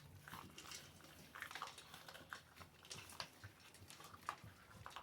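Faint, irregular small crunches and clicks of Central Asian shepherd puppies chewing.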